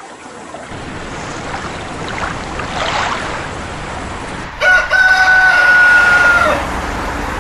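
A rushing noise swells, then about four and a half seconds in a loud rooster-crow sound effect cuts in. It is held for about two seconds and drops in pitch at the end.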